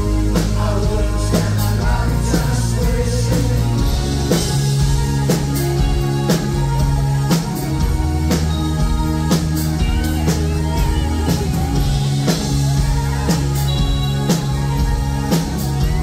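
Live new wave band playing through a PA: synthesizer, electric guitars, bass and drum kit with a steady beat, the bass line moving to new notes every few seconds.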